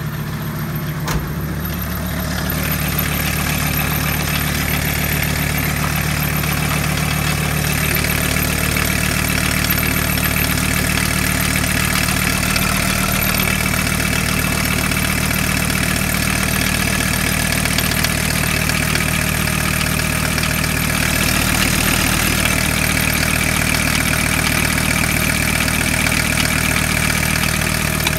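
Volkswagen T4's 2.4-litre AAB five-cylinder diesel engine idling steadily, with a single sharp knock about a second in.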